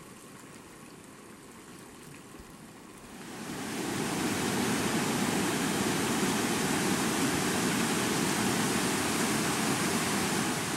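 Flash-flood water rushing down a dry streambed: a steady rushing noise that grows much louder about three seconds in.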